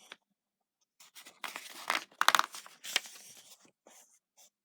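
A paper book page being turned, with the rustle and crinkle of the paper lasting about three seconds.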